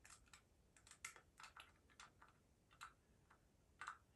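Faint, irregular small clicks and taps as a pump bottle of liquid foundation is handled and pumped.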